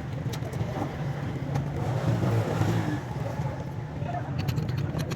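A steady low engine rumble, with a few short clicks near the end.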